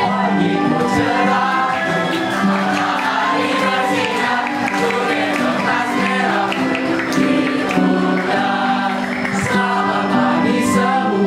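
A group of boys and girls singing a song together over instrumental backing music.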